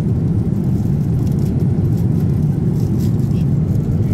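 Steady low rumble of a Boeing 787-10 airliner's cabin in cruise flight: engine and airflow noise heard from inside the cabin.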